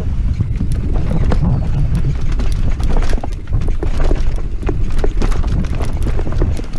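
Mountain bike ridden fast down a rocky trail: wind buffeting a helmet-mounted microphone, with constant rattling and many sharp knocks as the bike goes over rocks and roots.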